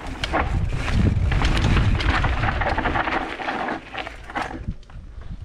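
Mountain bike rattling down a rock garden: repeated knocks of tyres and frame hitting rock over a heavy low rumble of wind and jolts on the microphone, loudest for the first four seconds and then easing.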